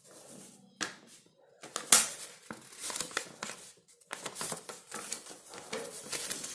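Packaging being handled: irregular crinkling and rustling with sharp crackles, loudest about two seconds in, with a short pause near four seconds.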